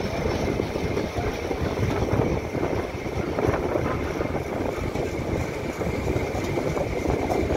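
Diesel-hauled passenger train running at speed, heard from on board: a steady, even rumble of wheels on rails.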